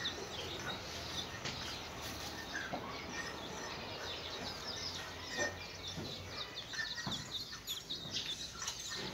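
Small birds chirping in quick, repeated twitters, busiest in the second half, over a low steady background hum with a few faint clicks.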